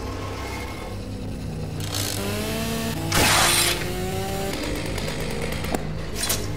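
Chainsaw revving, its pitch climbing, with a loud harsh burst of noise about three seconds in as it bites, over a steady low hum.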